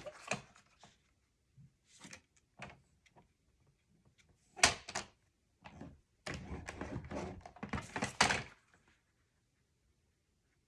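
Cardstock being handled and scored on a paper scoring board: a few light taps and clicks as the sheet is set against the board, a sharp click about halfway, then a scraping stroke of about two seconds as the scoring tool is drawn along a groove.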